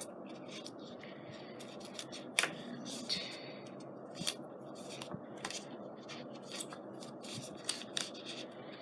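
Paper and scrapbooking materials handled on a tabletop: irregular light clicks and snips over soft rustling.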